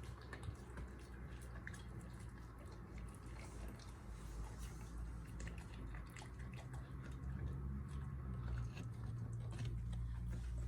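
German Shepherd gnawing and crunching a raw meaty bone, with many small irregular cracks and clicks, over a steady low hum.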